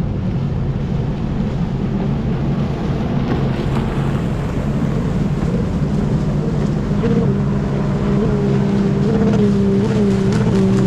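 Jet ski engine running under way over wind and water noise, its pitch wavering a little in the second half as the throttle is worked.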